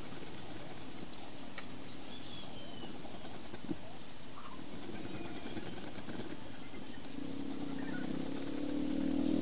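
Peeled white ube being rubbed by hand on a metal flat grater, a rhythmic scratchy rasp of strokes about twice a second. A low hum swells in over the last two seconds.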